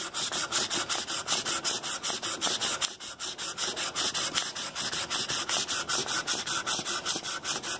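Fine-grit sandpaper rubbed back and forth by hand on a pine wood block, in quick even strokes about five or six a second.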